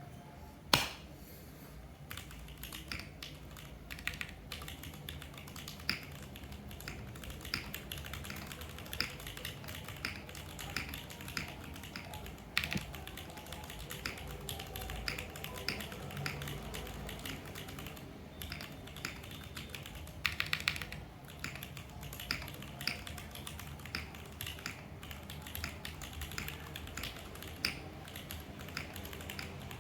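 Typing on a Shelby80 tenkeyless mechanical keyboard with unlubed Cherry MX Black linear switches on an aluminium plate, with no foam inside. It gives irregular keystroke clacks, a loud one about a second in and a quick run of keystrokes around twenty seconds in. A steady background noise from the phone recording sits under the keystrokes.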